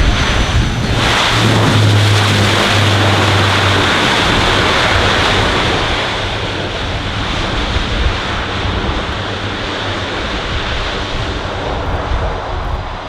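Loud rushing roar of a military aircraft flying past. It swells about a second in and eases after about six seconds.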